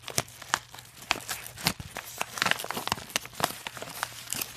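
Manila paper envelope being torn open by hand, with irregular crackles and rips of the stiff paper as it is worked open.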